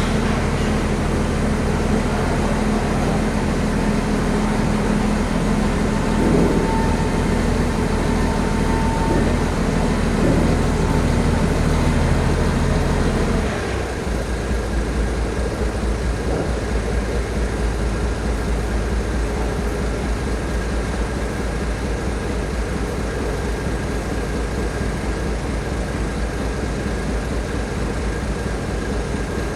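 Heavy vehicle's diesel engine running steadily; about halfway through the engine note changes and drops a little in loudness, with a faint steady whine above it.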